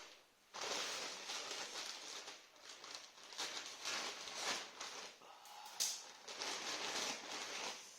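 Packaging being handled and opened: irregular crinkling and rustling surges, with a sharp click a little before six seconds in.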